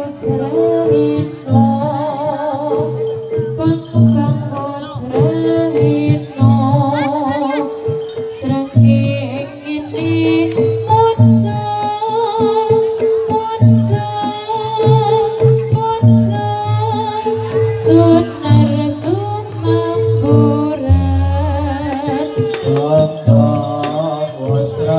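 Javanese jathilan gamelan music with a singer's wavering vocal line over sustained pitched tones and steady percussion strokes. A deep low stroke sounds about 21 seconds in.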